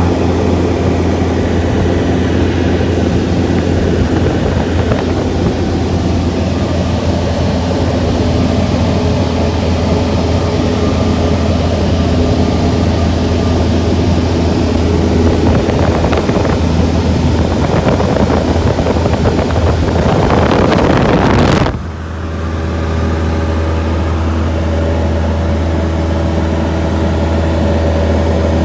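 Steady drone of a Cessna 152's four-cylinder piston engine and propeller in cruise, heard from inside the cabin. A rushing noise builds over several seconds and stops abruptly about 22 seconds in.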